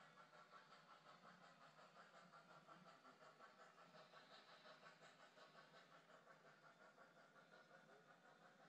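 Faint, steady running of a Lionel O-gauge model passenger train rolling along its track.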